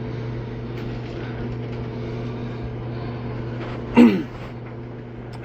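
Steady low machine hum, like a fan or ventilation unit running, with a short vocal sound about four seconds in.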